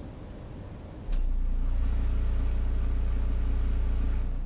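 A 12-inch subwoofer in a slot-ported box, tuned to 34 Hz, playing a 30 Hz test tone inside a vehicle cabin at about 130 dB: a steady, very deep hum that starts with a click about a second in and fades near the end.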